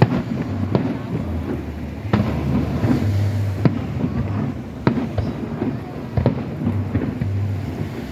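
Aerial firework shells of the Nagaoka fireworks display bursting: a run of sharp bangs at uneven intervals, roughly one a second, each trailing off in a short echo, over a steady low rumble.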